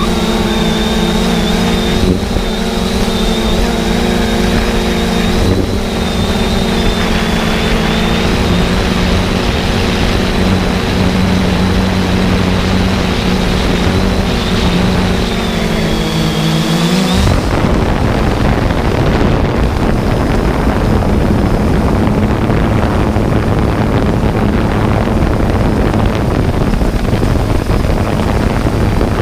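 Quadcopter drone's motors and propellers humming with a steady high whine that dips in pitch at about 17 s. From then on a rushing noise of wind and prop wash covers it.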